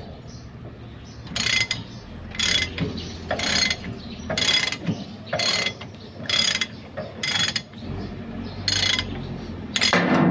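Socket ratchet wrench clicking in short strokes, about one a second, as it turns the U-bolt nuts clamping a HOWO dump truck's leaf spring. Just before the end a louder, steady low rumble sets in.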